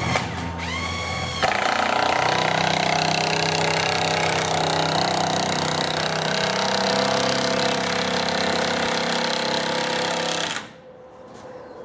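Power drill: a short rising whine as it spins up about half a second in, then a long loud rattling run that stops abruptly near the end.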